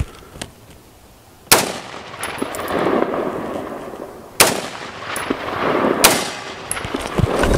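Smith & Wesson M&P15 AR-15 firing 5.56 mm rounds: three sharp shots, the second about three seconds after the first and the third a second and a half later. Each shot is followed by a drawn-out rumble.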